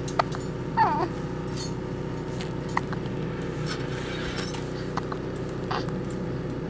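A baby's brief vocal sound, a short pitch that bends up and down about a second in, among scattered small clicks and clinks over a steady low hum.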